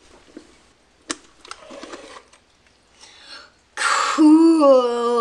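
A sharp click about a second in and some light rustling of handling, then, near the end, a loud drawn-out human vocal sound held on one pitch that slides down as it ends.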